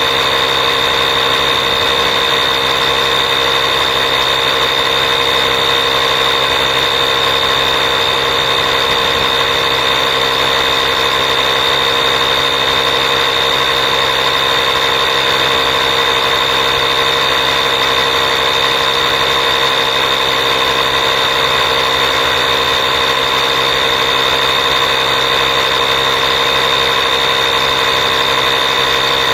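Small 12V portable air compressor built into a jump starter pack, running continuously with a steady, high-pitched motor drone and whine.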